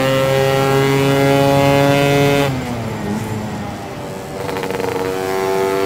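Lambretta scooter's two-stroke single-cylinder engine, breathing through a SIP Nordspeed expansion exhaust, pulling hard with its note slowly rising. About two and a half seconds in the note drops back and quietens, then it builds again from about four and a half seconds.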